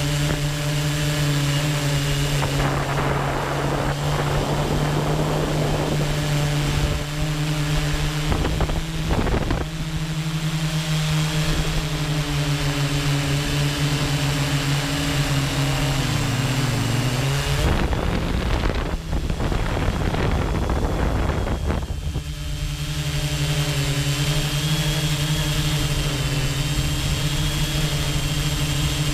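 Quadcopter drone's motors and propellers running with a steady, pitched hum, picked up by the drone-mounted camera. Gusts of wind noise rush over it a few times, the longest about two-thirds of the way in, when the hum briefly dips in pitch as the motors change speed.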